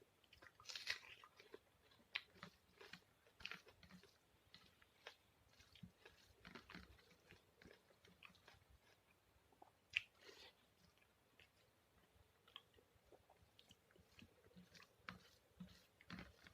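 Close-miked eating sounds: irregular wet chewing, lip smacks and crisp bites of salted rice with potato and onion, with one sharper click about ten seconds in.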